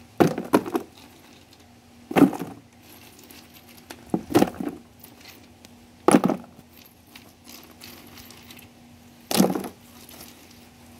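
Broken brick pieces and pebbles clacking against each other as they are set by hand into a bed in a cardboard box, in about seven separate knocks with pauses between.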